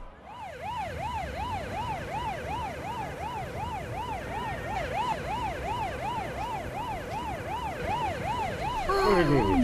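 Police siren sound effect, its pitch sweeping up and down quickly, about three times a second. Voices begin near the end.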